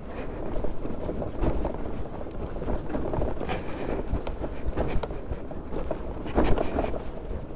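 Scooter rolling slowly down a steep, rocky dirt track: tyres crunching over loose stones, the body rattling over the bumps, and wind buffeting the microphone.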